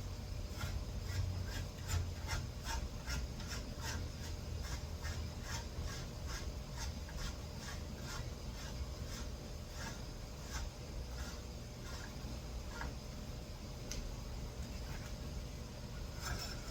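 Hand-tool work on a bicycle fork: a run of short, light metal strokes, about three a second at first, then sparser and irregular, over a low steady hum.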